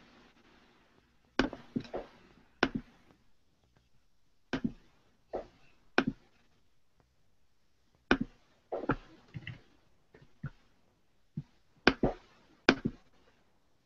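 Irregular sharp computer clicks and taps, some in quick pairs, as a video clip is being cued up on a computer.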